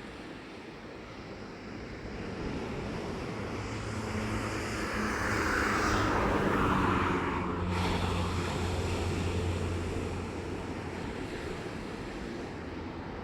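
A vehicle passing by: a low engine hum and a hiss build up over a few seconds and then fade. The high hiss cuts off suddenly about eight seconds in. Surf runs steadily underneath.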